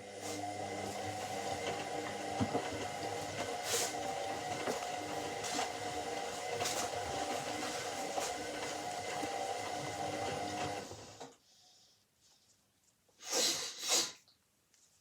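Washing machine motor turning the drum, a steady mechanical hum with a whine, stopping abruptly about eleven seconds in. Two short noisy bursts follow near the end.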